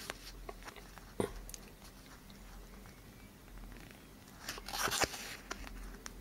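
Fingers handling a cardboard 2x2 coin holder close to the microphone: a light click about a second in, then a brief crackling rustle as the holder is turned over between four and five seconds in.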